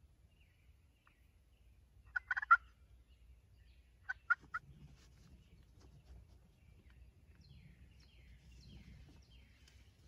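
Wild turkey tom gobbling: a loud rapid rattling gobble about two seconds in, then a shorter burst of three sharp notes about two seconds later.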